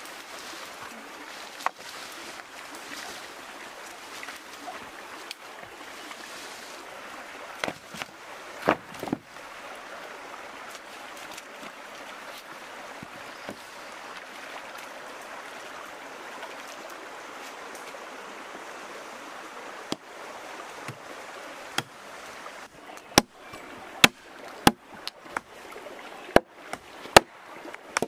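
Shallow stream water running and splashing, with a few single wooden knocks. In the last few seconds, a run of sharp machete strikes chopping into a wooden plank, about one or two a second.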